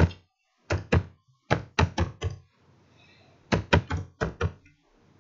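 Computer keyboard keys struck one at a time while typing numbers: about fourteen sharp taps, each with a dull thump, in two quick runs with a pause of about a second between them.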